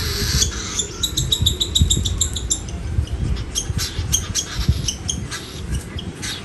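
Baby cockatiel's food-begging chirps: a quick, even run of short high chirps, about six a second, starting about a second in and lasting under two seconds, followed by scattered sharp clicks.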